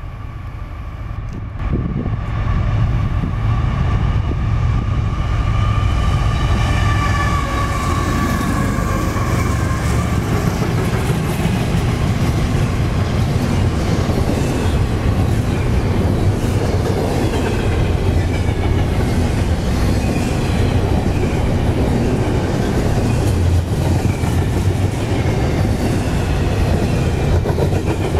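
CSX double-stack intermodal freight train passing close by. It gets suddenly louder about two seconds in as the locomotives reach the spot, then the container cars roll by in a steady rumble with wheels clattering on the rails. A high steady tone runs through the first ten seconds and drops in pitch as the locomotives go by.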